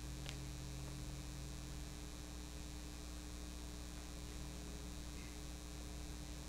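Steady low electrical mains hum with a faint hiss: the quiet room tone of the sanctuary, with one faint click.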